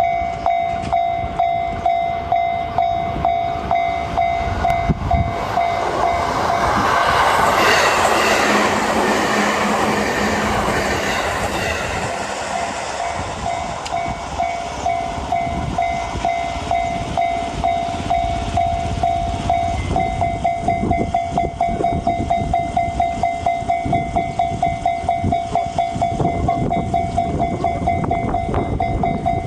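Japanese level-crossing warning bell clanging in a fast, steady rhythm. About six seconds in, a train passes: its running noise swells for several seconds and fades by about fourteen seconds in, while the bell keeps ringing.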